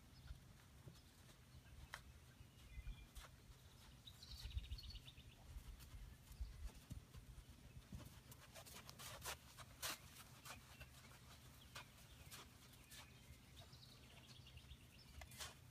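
Faint sounds of a horse walking on a sand arena: soft, scattered clicks and knocks over a low rumble. A brief high chirping comes about four seconds in and again near the end.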